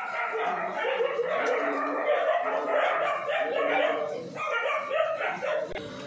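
Several dogs barking and yelping, their calls overlapping, cut off abruptly near the end.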